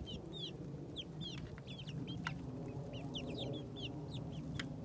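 A flock of young Easter Egger chickens peeping: many short, high calls that fall in pitch, overlapping all through, with a couple of sharp clicks.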